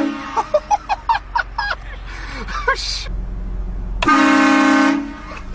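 A loud vehicle horn, blown as a prank to startle people, gives one steady blast of just under a second about four seconds in. Voices come before it, and a low engine rumble runs underneath.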